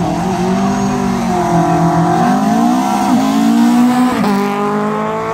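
Race car engine pulling hard up through the gears. The pitch climbs, then drops sharply at an upshift about three seconds in and again at another about four seconds in.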